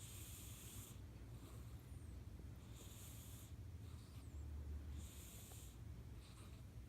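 Domestic cat snoring in deep sleep: three faint, airy snore breaths about two seconds apart.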